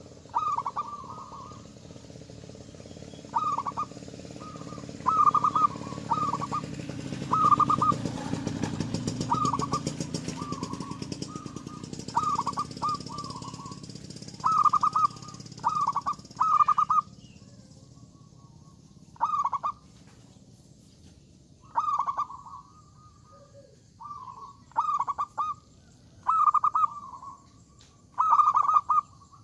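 Zebra dove (perkutut) cooing over and over: short, trilled coo phrases every second or two. A low rumble underlies the first half, swelling about a third of the way in and fading out around the middle.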